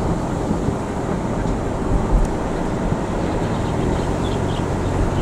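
Car road noise while driving: a steady low rumble of tyres and engine, with a couple of brief bumps.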